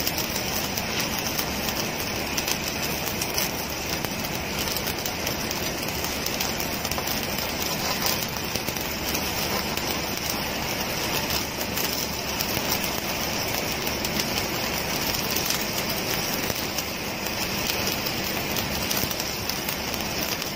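Stick (shielded metal arc) welding: the arc crackles and sizzles steadily, without a break, as the electrode burns along a vertical seam in steel plate.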